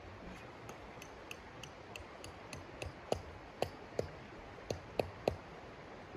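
A series of light clicks, about three a second, then six louder, sharper knocks in the second half.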